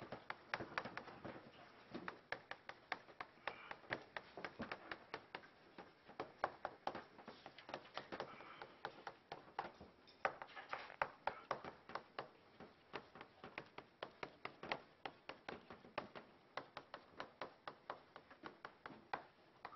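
Chalk writing on a blackboard: an irregular run of sharp taps and short scratches, several a second, as characters are stroked onto the board.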